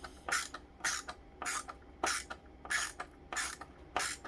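A screw being turned with a hand screwdriver into the plastic body of a Hoover Elite II upright vacuum. Each twist gives a short rasping scrape, about one every half second, as the screw cuts in at an angle and threatens to strip.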